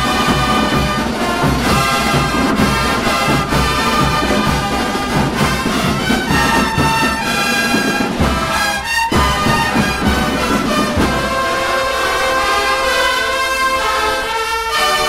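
Drum and bugle corps playing a brass piece: bugles sounding full chords over marching drums, then holding long sustained chords with the drums dropping out from about eleven seconds in.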